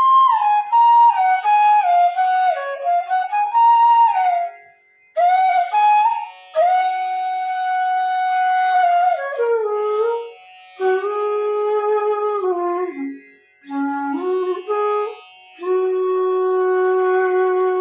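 Bass bamboo flute (bansuri) in F sharp playing slow melodic phrases with short breaths between them, stepping down into its low register and ending on a long held low note. It is being played over a tanpura drone as a check of its tuning and tone.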